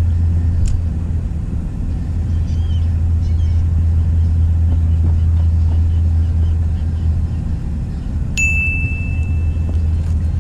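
Steady low rumble of an idling vehicle engine. About eight seconds in, a single high steady beep sounds and holds for over a second.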